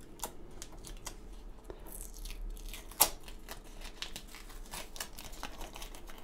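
Masking tape being peeled off the edge of a ballasted model railway track bed: an irregular string of small crackles and ticks, with one sharper click about three seconds in. The tape pulls away some ballast grains where they were not glued down.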